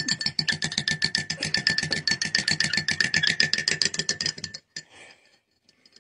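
Metal teaspoon clinking rapidly and evenly against a ceramic mug, with a ringing tone, as a monk parakeet stirs with the spoon held in its beak. The clinking stops about four and a half seconds in.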